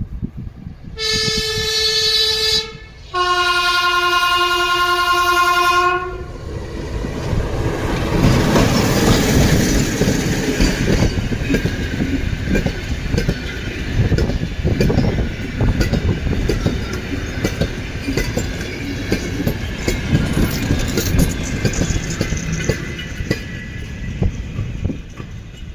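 Diesel locomotive's typhoon horns sounding two blasts, the first higher and short, the second lower and longer. The locomotive and its museum train then pass, with a steady rumble and the clatter of wheels on the rails.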